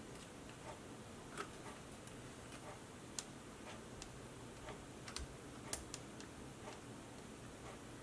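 Faint, irregular ticks and light taps of small tools and parts being handled during soldering work on an LED strip's circuit board, over low room hiss.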